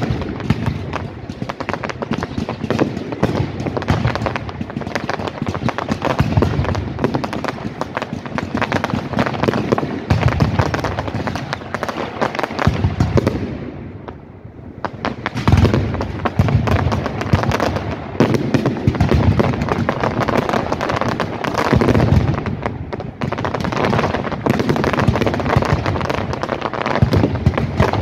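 Aerial fireworks bursting: a dense run of crackles and pops with deeper booms now and then. The crackling thins out briefly about halfway through, then builds again.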